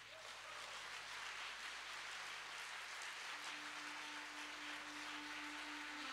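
Audience applauding at the end of a song. About three seconds in, a single held accordion note begins softly under the applause.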